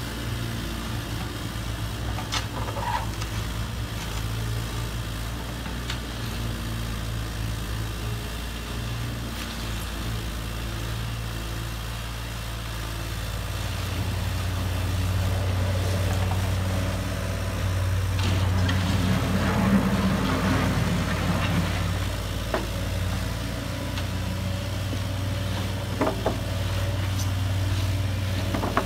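Steady engine idling sound that gets louder about halfway through, with a few light clicks.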